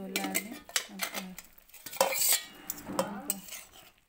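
A metal spatula clinks and scrapes against an aluminium pot lid and an iron kadai as the lid comes off and the boiled chopped banana flower is stirred. The loudest clatter comes about two seconds in.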